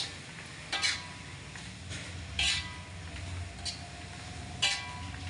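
Metal spatula scraping and clinking against an aluminium wok while stirring a thick paste of fermented durian, about four strokes, each with a brief metallic ring. A low steady hum runs underneath.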